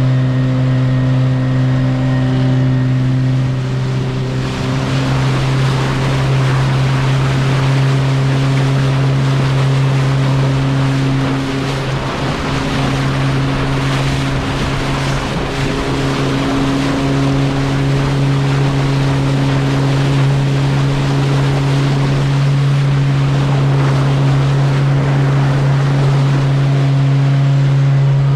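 Motorboat engine running at a steady pitch, with water rushing along the hull and wind on the microphone; the rushing hiss grows louder about four seconds in.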